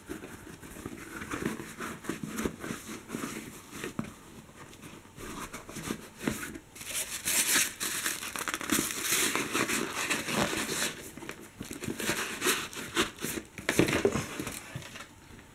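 Paper packing stuffing crinkling and rustling as it is pulled out of a leather boot and handled. The rustling comes in irregular handfuls, heaviest about halfway through and again near the end.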